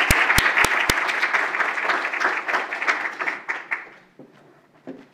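Audience applauding, fading out about four seconds in. In the first second, single loud claps close to the lectern microphone come about three a second and then stop.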